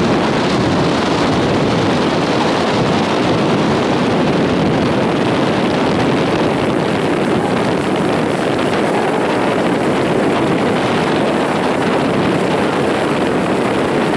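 Steady rushing noise of a motor launch running alongside the racing shells, mixed with wind buffeting the microphone.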